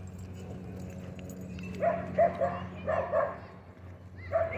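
A dog barking, a quick string of short barks about two seconds in, then another run starting near the end.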